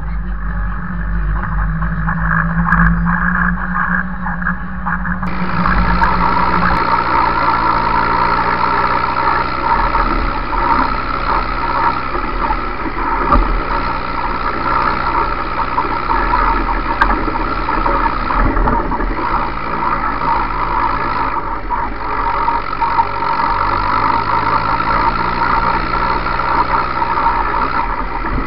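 Ursus 5314 tractor's diesel engine running steadily as the tractor drives across a meadow. It is heard from inside the cab at first, then, after a change about five seconds in, from out on the bonnet.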